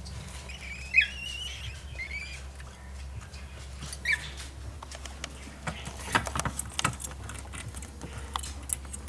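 Baby cockatiel chirping a few times, short falling chirps and a wavering call, the loudest about a second in. In the second half comes a run of quick light clicks and taps.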